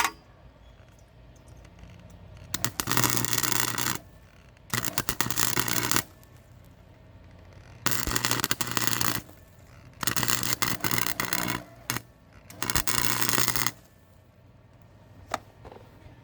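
Welding arc crackling in five short bursts of one to two seconds each, with a steady hum under each burst: stitch welds laid on thin sheet-metal panel.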